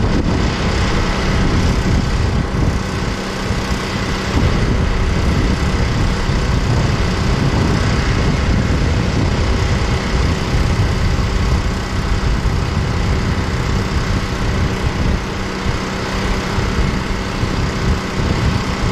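An engine running steadily at idle, holding an even pitch throughout.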